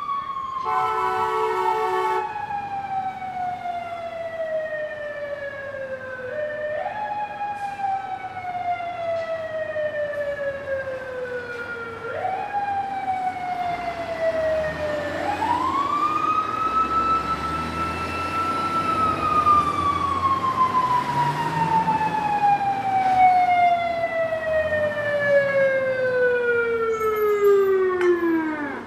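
Fire truck siren winding up and slowly coasting down in pitch, kicked back up three times, then held high for a few seconds and finally winding all the way down near the end. A brief steady horn blast sounds about a second in, over a low engine rumble.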